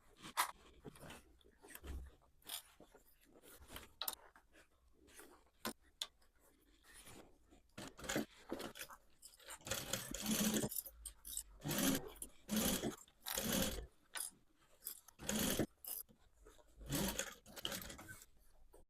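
Denim fabric being handled: irregular rustling and scraping strokes, louder and more frequent in the second half.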